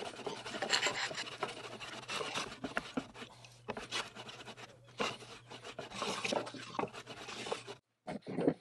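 Hand plane shaving the edge of a pecan workpiece in repeated strokes, breaking the edges after glue-up. The strokes stop abruptly near the end.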